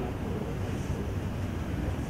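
Steady low rumble of background room noise, with faint murmuring voices now and then.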